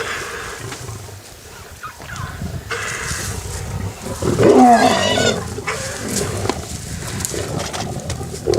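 Big cat growling and roaring, with one loud roar about four and a half seconds in.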